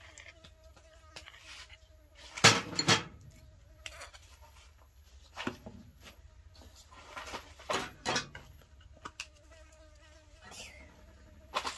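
Spoon and utensil knocks and clinks against a small bowl and a wooden cutting board while minced pork is seasoned, a handful of sharp taps with the two loudest close together about two and a half seconds in. A fly buzzes faintly and steadily under it.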